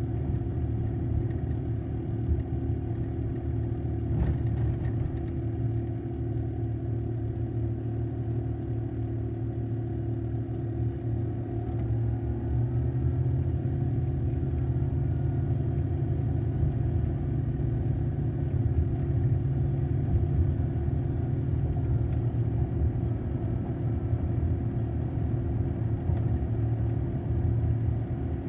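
Steady low rumble of tyres and engine heard from inside a moving car.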